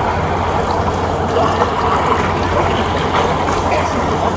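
Boat engine running steadily, with a low hum under the rush of water.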